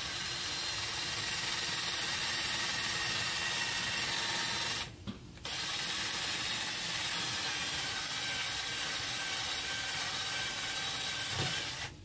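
Cordless drill running with a 3/16-inch bit, boring a pressure-relief hole through the PVC discharge pipe of a sump pump. The hole keeps the pump from airlocking. The drill runs steadily for about five seconds, stops briefly, then runs again for about six seconds.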